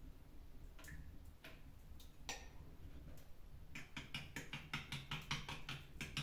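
Light clicks and taps of kitchenware against glass: a few scattered ones, then a quick run of small clicks over the last couple of seconds.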